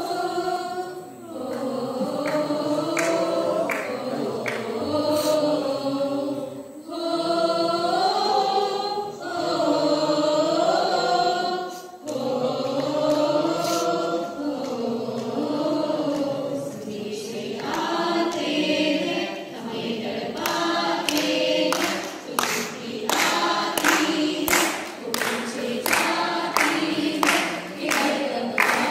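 A group of voices singing a song together. About two-thirds of the way through, steady hand claps join in, roughly one and a half a second, keeping time with the singing.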